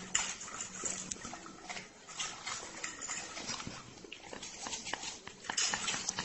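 Fork and spoon clicking and scraping on a plate while a dog eats from them, with small scattered clicks and the dog's eating noises.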